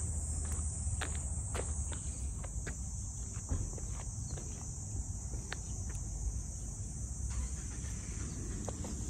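A steady high-pitched chorus of summer insects over a low rumble, with irregular footsteps on a paved road.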